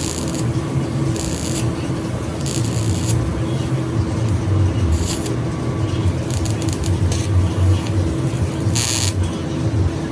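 Welding on a small carbon-steel shoe buckle: short bursts of hiss, each about half a second, come several times over a steady low hum and rumble.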